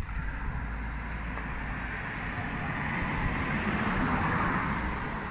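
Road traffic: a car passing, its tyre and engine hiss swelling to a peak about halfway through and then easing off, over a low rumble.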